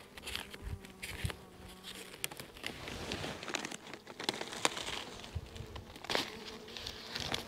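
Honeybees buzzing in a steady hum over the open hive's frames, while a sheet of newspaper crinkles and rustles as it is peeled back off the top bars.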